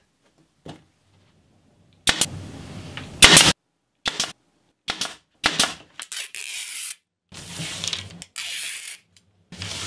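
Nail gun driving fasteners through a trim rail into Homasote fibreboard: about six sharp shots over four seconds, the loudest one a little past the middle, followed by a few seconds of rustling.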